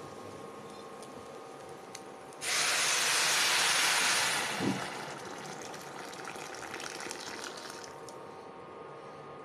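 Boiled water poured in a stream into a pressure cooker of rice and vegetables. It splashes in loudly about two and a half seconds in, then runs on more softly and stops shortly before the end.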